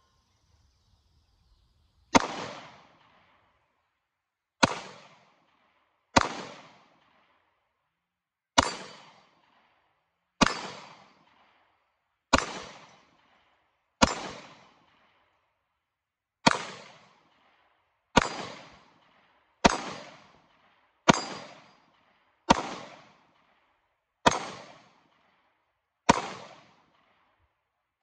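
Springfield XD(M) Compact 9mm pistol fired in slow single shots, about fourteen in all, one every one and a half to two and a half seconds. Each is a sharp crack that fades out over about a second.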